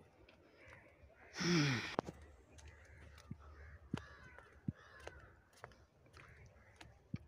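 Crow cawing: one loud harsh caw about a second and a half in, with fainter bird calls after it and a few light clicks.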